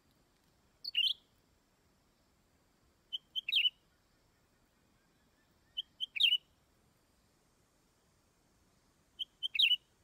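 Leafbird calling: four short calls about every three seconds, most of them two quick high notes leading into a louder chirp.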